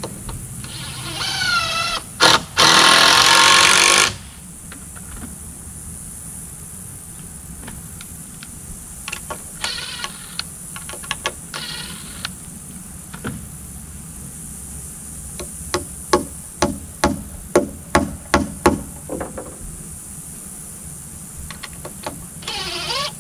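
Cordless drill spinning up with a rising whine, then running hard as it bores into or drives a screw into a timber beam. Shorter bursts follow, then a quick run of sharp knocks, and the drill runs again near the end.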